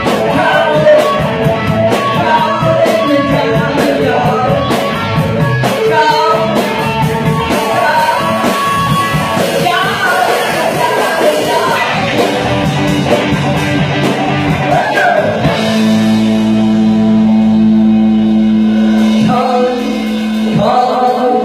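Live rock band playing: electric guitar, bass, drums and a lead vocal. About fifteen seconds in the drums stop and the band holds a long sustained chord for a few seconds.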